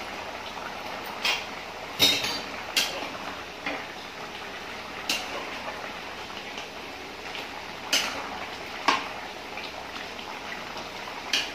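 Perforated metal ladle stirring simmering chicken gravy in an aluminium pressure cooker, knocking against the pot about eight times, loudest about two seconds in, over a steady bubbling.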